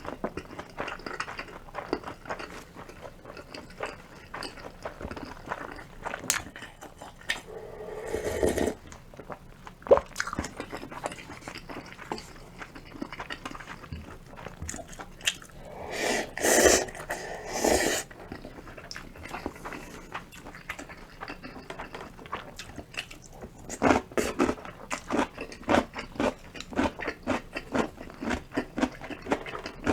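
Close-miked eating: steady chewing with frequent crisp crunches and mouth clicks. There are two longer, louder stretches, about eight seconds in and again around sixteen to eighteen seconds.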